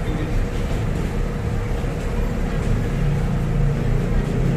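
Steady low background rumble with a faint, steady hum above it, unchanging throughout.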